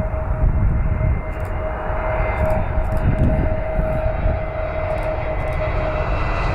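Airbus A320neo jet engines on short final approach at low thrust: a steady whine over a low rumble as the airliner passes close overhead to land.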